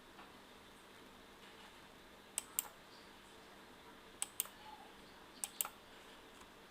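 A computer mouse double-clicking three times, each a pair of sharp clicks, over faint room hiss.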